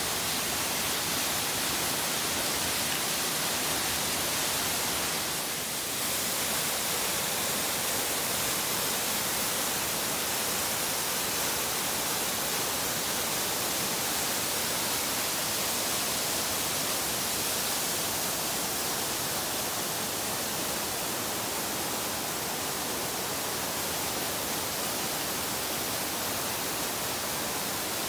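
Steady rush of a rocky mountain stream, falling water running without a break, dipping briefly about six seconds in.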